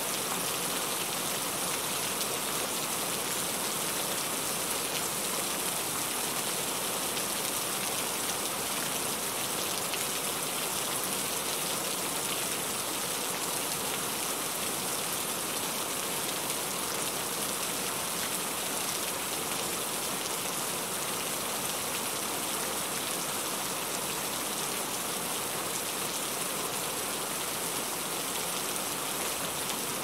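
Steady rain falling.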